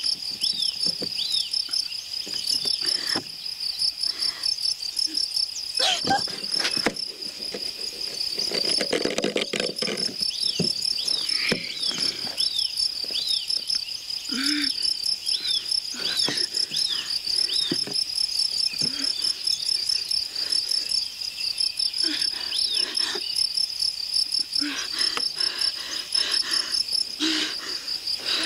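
Crickets chirping steadily in a fast pulsing trill, with a second, lower chirp repeating about twice a second. Scattered knocks and rustles of movement on a stage come through over it.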